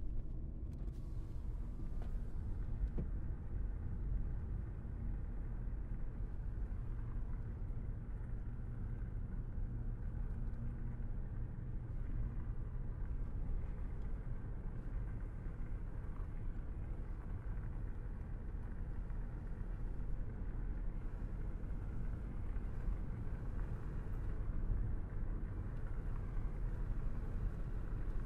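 Car driving along at a steady speed: a steady low rumble of engine and tyre road noise.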